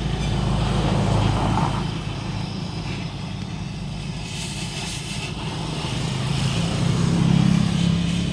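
A motor vehicle's engine running, a steady low hum that swells about a second in and again near the end.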